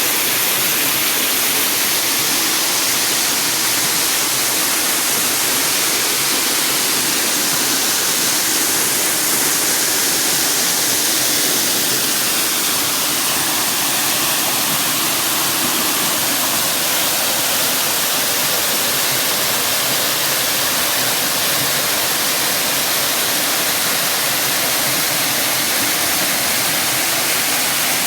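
Waterfall pouring: a steady, loud rush of falling water with no breaks.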